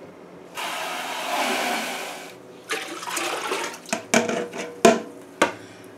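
Water poured from a clear container into a large metal stock pot, in two pours. During the second pour there are several sharp knocks.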